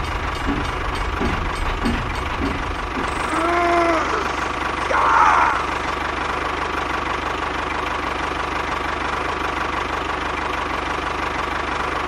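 Diesel tractor engine running at idle with a steady knocking chug. Two short squeaky chirps break in at about three and a half and five seconds in.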